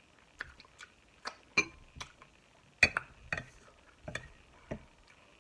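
A string of about a dozen sharp clicks and light clinks at irregular intervals, the loudest a little before three seconds in: eating sounds as seafood-boil food is picked from a china plate with fingers and a metal fork.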